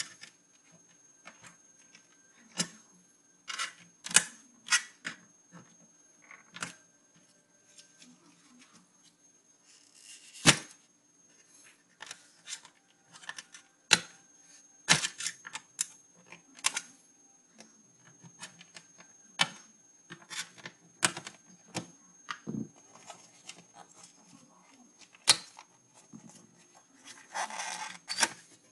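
Irregular clicks, taps and plastic snaps as a screwdriver and fingers pry at an opened ASUS CD-ROM drive's plastic frame and metal chassis, with a longer scraping rub about ten seconds in and again near the end.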